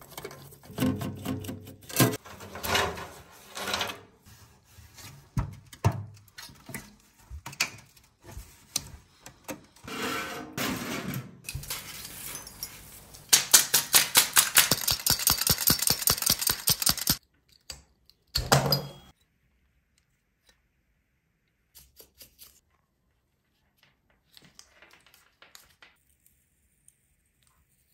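Hands working on a desktop computer's parts during a deep clean: irregular clicks, knocks and scraping. Then comes a run of fast, even strokes at about six a second for some four seconds, a couple more knocks, and it goes nearly quiet for the last third.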